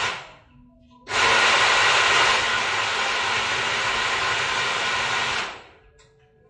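Personal-size countertop blender running in two bursts: the motor stops just after the start, starts again about a second in, runs for about four and a half seconds, then cuts off. It is blending pumpkin for soup.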